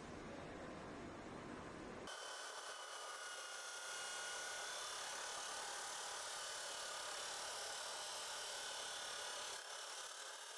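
Faint, steady high-pitched machine hiss with a thin whine, which replaces a lower rumble abruptly about two seconds in.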